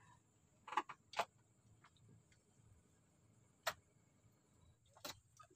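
A handful of sharp, separate clicks a second or more apart over a quiet background, from fishing tackle being handled: rod, reel and line worked by hand.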